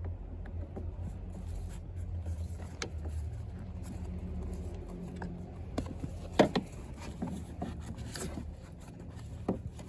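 Seatbelt and plastic seatbelt guide being handled and fitted: scattered clicks and knocks, the loudest about six and a half seconds in, over a steady low hum.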